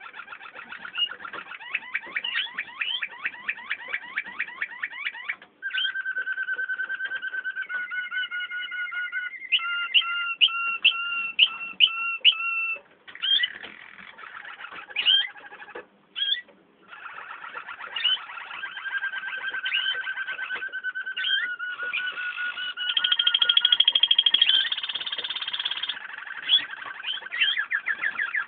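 Waterslager canaries singing a continuous song: fast rolling trills, long level whistles, and a run of short sharp notes about halfway through, broken by two brief pauses.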